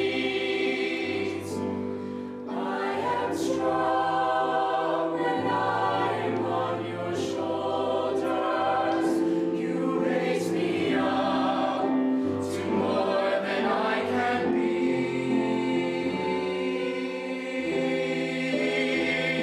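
A mixed-voice college show choir singing together in harmony, holding long sustained chords that change every second or two.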